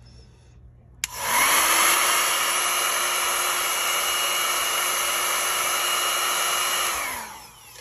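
Handheld hair dryer switched on with a click about a second in, blowing steadily with a motor hum, then switched off and winding down near the end. It is blowing wet acrylic paint outward across a coaster, pushing the pour to the edges.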